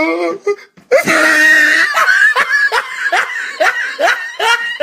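A person laughing hard: a loud, high-pitched outburst about a second in, then a run of rhythmic laughing bursts, about three a second.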